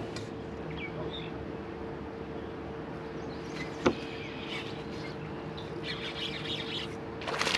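Birds chirping in short scattered calls over a steady hum, with one sharp click about four seconds in.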